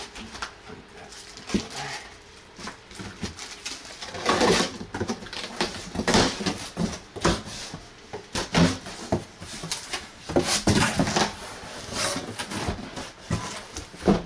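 Cardboard shipping box being handled and opened: flaps scraping and folding back, foam packing inserts rustling, with irregular knocks and clicks throughout.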